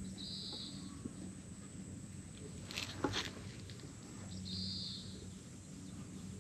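Outdoor ambience with two short, high buzzy calls about four seconds apart, and a brief scratchy rustle near the middle that is the loudest moment.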